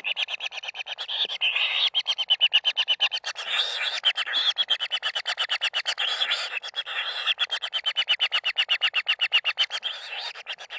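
Kingfisher chicks begging: a fast, unbroken train of harsh pulses, about ten a second.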